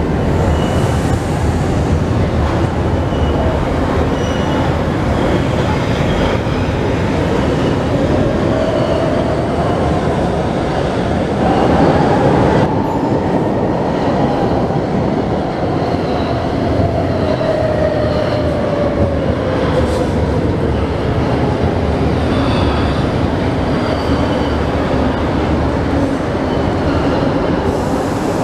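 Brussels metro train in an underground station: continuous rumble and wheel noise on the rails. Around the middle, a motor whine climbs and then falls away as the train pulls in and brakes to a stop at the platform.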